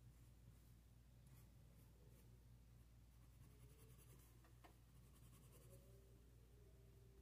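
Faint scratching of a green pencil sketching on sketchbook paper in short strokes, over a low steady hum.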